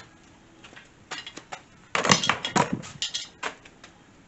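Clattering and knocking as things are handled and moved about: a few scattered knocks, then a dense loud clatter about two seconds in that thins out toward the end.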